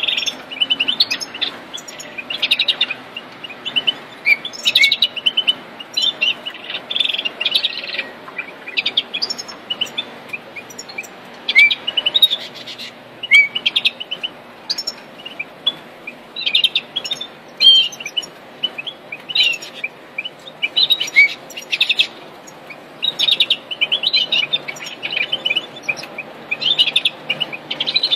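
European goldfinches chirping and twittering in rapid runs of high notes, with short sliding slurs, nearly without pause.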